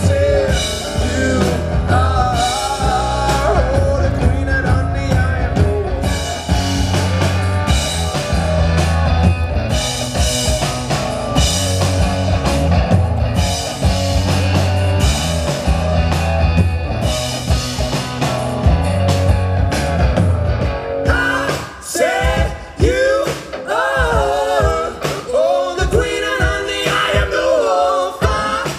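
Live rock band playing with singing: electric guitars and drum kit over a heavy low pulse. About 21 seconds in, the band drops out to voices over sparse drum hits.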